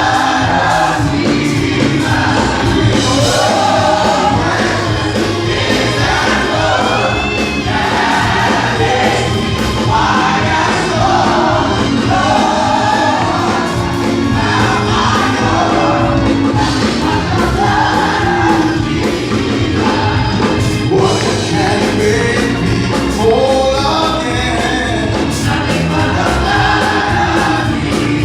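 A choir singing gospel music, continuous and steady in loudness.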